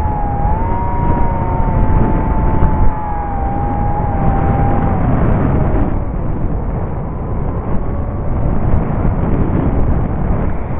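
Onboard sound of an EPP foam FPV model plane in flight: heavy wind buffeting on the microphone with the motor's whine over it. The whine wavers a little in pitch and fades out about five seconds in, leaving the rushing wind.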